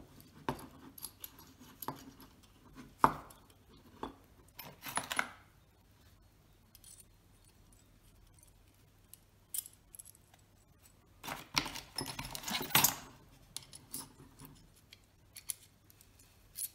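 Metal adjustable lens spanner being handled and adjusted: scattered light metallic clicks and clinks, in a few clusters with a quiet stretch in the middle.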